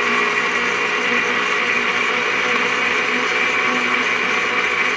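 Nutribullet blender motor running steadily at full speed, blending aloe vera gel with water: a constant whirring hum with a hiss on top.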